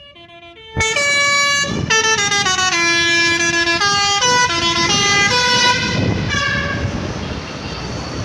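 Bus 'telolet' multi-tone air horn (Basuri V3) playing a fast tune of stepping notes. A few quiet notes come first; it turns loud about a second in and stops about six seconds in, leaving a noisy rush.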